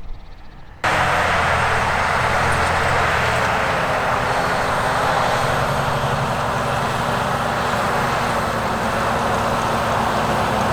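Fendt 936 tractor's diesel engine running steadily under load while pulling an eight-furrow plough, with a loud rushing noise over the engine's hum. It starts abruptly about a second in.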